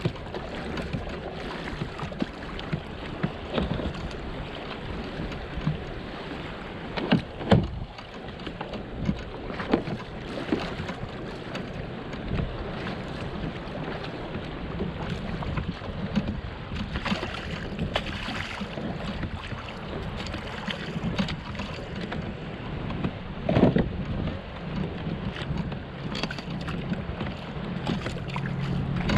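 Water lapping against a kayak hull with wind on the microphone, broken by scattered knocks: two sharp ones close together about a quarter of the way in and another late on. A low steady hum comes in over the last few seconds.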